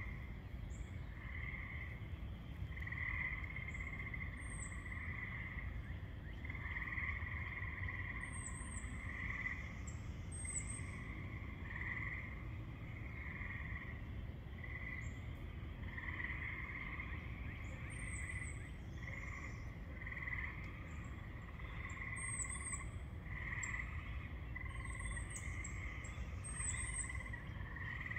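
A chorus of frogs calling: overlapping trills, each lasting from a few tenths of a second to about a second, following one another without a break. A few short, high chirps sound over the chorus.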